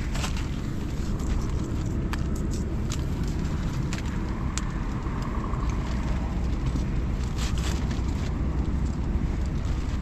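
A steady low rumble, with scattered light clicks and rustles from hands working a small winter ice-fishing rod and line over the hole.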